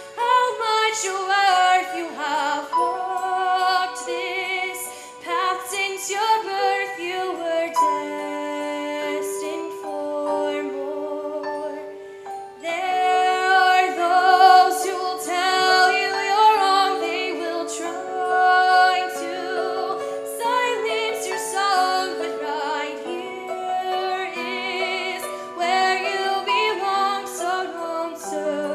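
A choir singing in harmony, with several voice parts holding sustained notes with vibrato. The singing thins briefly about twelve seconds in, then comes back in fuller.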